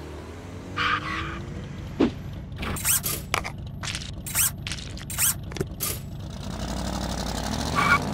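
Cartoon car sound effects: an engine running, its pitch gliding up and down. A short higher blast comes about a second in and again near the end, with a run of sharp squeals and clicks in the middle.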